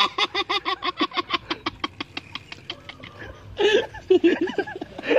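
A dog making a fast run of short, pitched vocal calls, about seven a second, for nearly three seconds while being stroked on the head, then a few longer wavering calls near the end.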